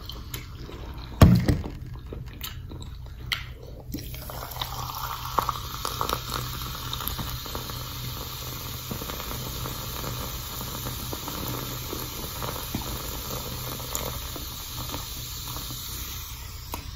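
Cola poured from a can into a glass of ice, a steady fizzing pour that starts about four seconds in, after a few clicks and knocks.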